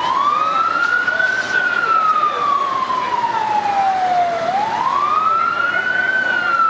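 Fire engine siren on a slow wail: the pitch climbs over about a second and a half, then slides down over about three seconds, and the cycle repeats.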